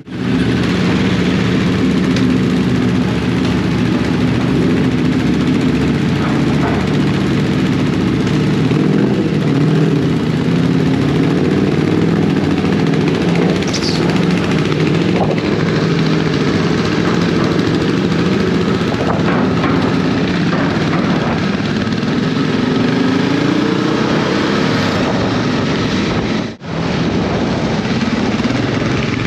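Motorcycle engine running steadily while under way, its pitch drifting up and down with the throttle, over wind noise. The sound drops out briefly near the end.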